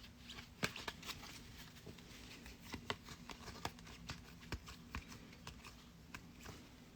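Faint handling of trading cards: cards slid and flipped through by hand, with irregular light clicks and rustles.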